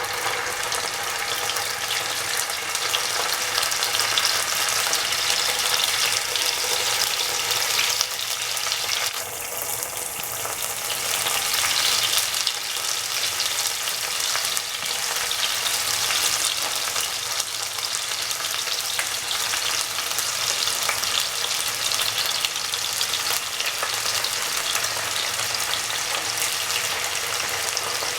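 Marinated anchovies frying in hot oil in a pan: a steady, dense sizzle.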